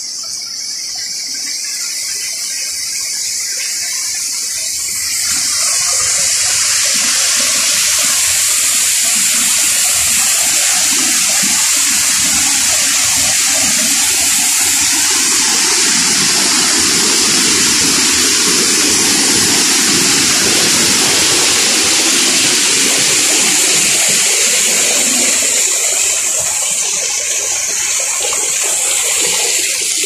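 Waterfall pouring over rock: a loud, steady rush and splash of falling water that swells about five seconds in as the falls come close. Insects trill faintly at first.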